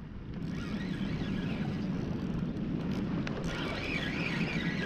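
Wind buffeting a head-mounted camera's microphone: a steady low noise with no clear events.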